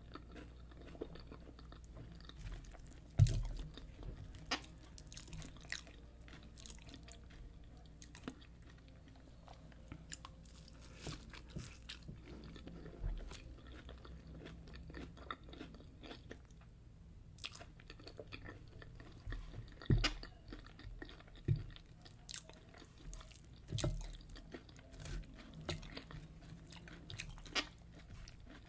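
Close-up chewing and biting of fried yam with egg sauce: wet chewing broken by short crisp crunches and clicks, the sharpest about three seconds in and again around twenty seconds in.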